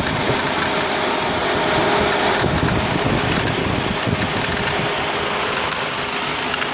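2004 Honda Accord engine idling steadily, with a clicking from the accessory belt area. The clicking comes from a failed belt tensioner.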